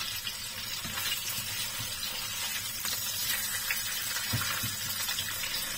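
Pieces of salmon belly sizzling steadily in plenty of oil in a frying pan, cooked through by now, with a light knock of the spatula against the pan a little after four seconds in.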